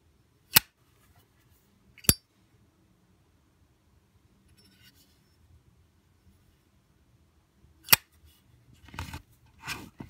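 Zippo windproof lighter's hinged metal lid snapping open and shut: three sharp metallic clacks, about half a second in, two seconds in and near eight seconds. Softer rustling near the end as the lighter is set into its cardboard box.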